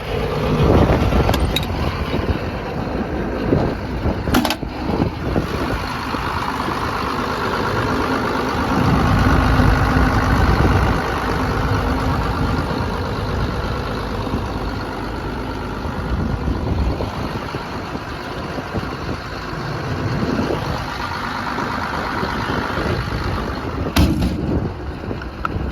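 Doosan 255LC-V hydraulic excavator's diesel engine running steadily, a little louder for a few seconds about eight seconds in, with a few short sharp knocks. The engine sounds healthy and smooth.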